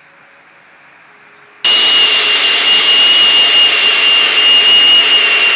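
Electric countertop blender running at full speed, a loud steady whir with a high whine through it, switching on abruptly about a second and a half in.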